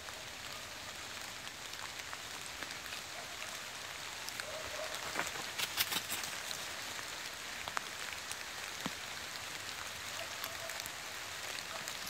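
Light rain pattering on forest leaves: a steady hiss with scattered ticks of individual drops.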